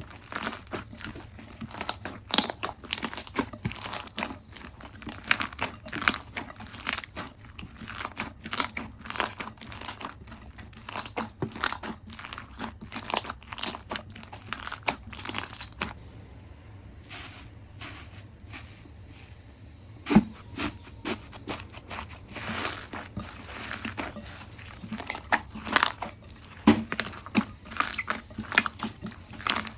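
Slime being squished and poked by hand, a dense run of sticky clicks and crackling pops as air pockets burst. The sound thins out for a few seconds past the middle, then picks up again.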